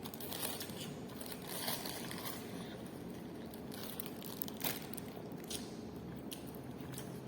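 A person eating: crunching, biting sounds with scattered small clicks and crackles, the sharpest about two-thirds of the way in.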